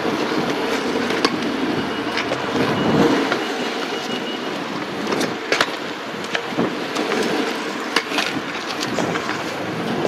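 Skateboard wheels rolling along a paved pavement: a steady rumble broken by sharp clicks now and then.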